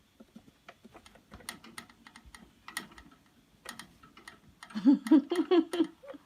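Scattered light clicking and tapping, then near the end a kitten gives a quick run of about six short, rising-and-falling mews.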